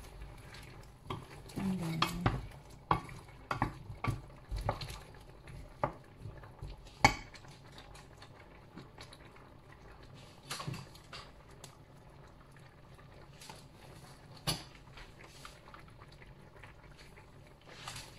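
Wooden spoon stirring a stainless steel pot of curry, knocking and scraping against the pot in a string of clatters over the first seven seconds, then only a few scattered knocks over a low simmer.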